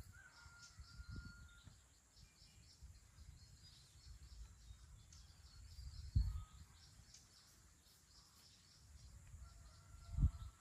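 Faint outdoor field ambience: a low rumble with two brief louder low thumps, about six seconds in and just before the end, under scattered short high chirps and a thin steady whistle.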